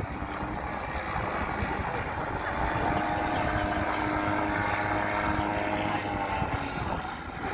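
Propeller-driven piston engines of a display gyroplane and a biplane flying past together: a steady engine drone that grows louder about two seconds in and fades near the end.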